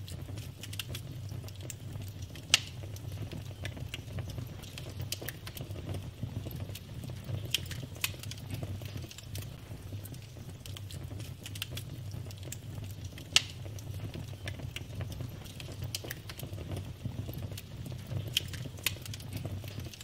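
Wood logs burning in a fireplace, crackling with frequent small snaps over a steady low rumble, with two louder pops, one about two and a half seconds in and one about thirteen seconds in.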